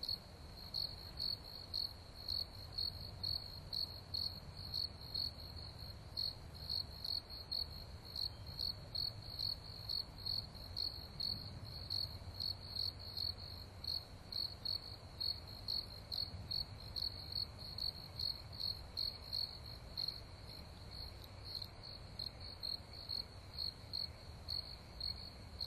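Cricket chirping in an even, steady rhythm, about two to three short high-pitched chirps a second, over a faint low background rumble.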